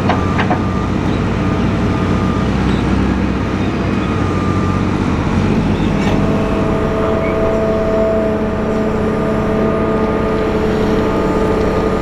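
Hitachi Zaxis 320 excavator's diesel engine running steadily under load as it works soil, with a couple of short knocks near the start as earth drops into the trailer. About halfway through, a steady higher whine joins the engine sound.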